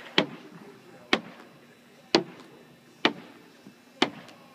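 Tennis balls striking hard in a rapid-fire catching drill: five sharp smacks, about one a second, each with a brief echo.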